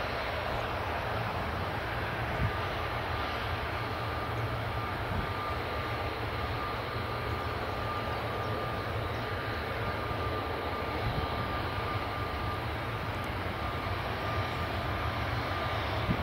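Jet airliner engines running steadily: a broad, even rumble with a thin steady whine held over it, neither rising nor fading.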